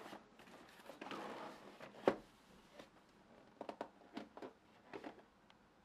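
Cardboard product box being handled and turned over by hand: a rustling slide, a sharp knock about two seconds in, then several light taps and clicks in the second half.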